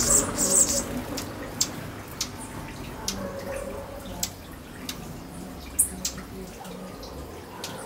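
Small birds chirping: a quick cluster of high chirps at the start, then single sharp chips every second or so.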